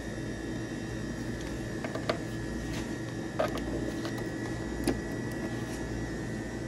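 A few light clicks and taps of a phone and card handled against a self-order kiosk's payment reader, over a steady high-pitched electronic whine and a low hum.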